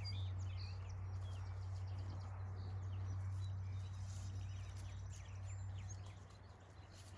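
Small birds chirping intermittently over a steady low hum, with faint rustling of fir branches as they are handled.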